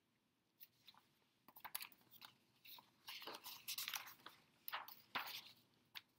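Faint handling noise: irregular rustling and crinkling with scattered clicks, busiest in the middle.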